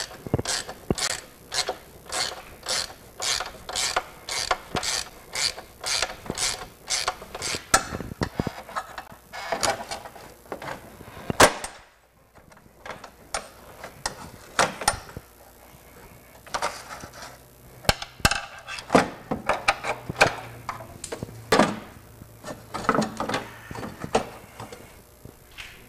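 Hand ratcheting wrench clicking as it backs out the EVAP canister's mounting bolts, in quick even strokes of about three a second. There is one sharp, louder click about halfway through, a short pause, then more uneven bouts of ratcheting.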